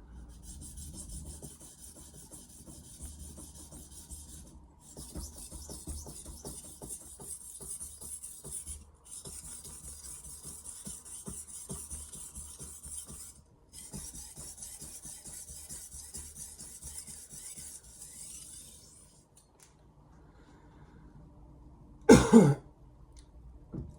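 An 8-inch Mercer granton-edge knife being stroked back and forth on the 1000-grit side of a combination sharpening stone: a steady scraping rasp in four long runs broken by brief pauses, restoring an edge that was blunted on purpose. Near the end there is one short, loud throaty sound from a person.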